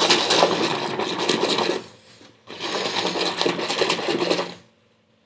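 A hand swishing and stirring water in a bucket to dissolve washing powder, in two bouts of about two seconds with a short pause between.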